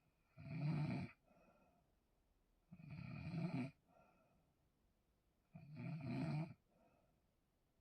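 A person snoring heavily in their sleep: three loud, rough snores about two and a half seconds apart, each followed by a softer breath.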